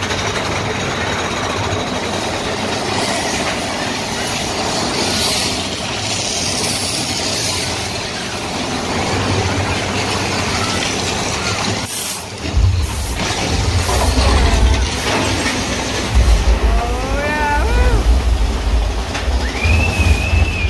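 Big Thunder Mountain Railroad mine-train roller coaster running through its tunnels: a steady rushing rattle of the train on the track, joined about twelve seconds in by a heavy low rumble that swells and fades. Riders whoop with short rising and falling cries near the end.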